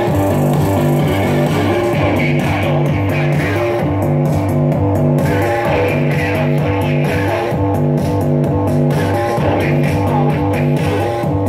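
Guitar-based music with electric guitar and bass playing a steady, repeating rhythm.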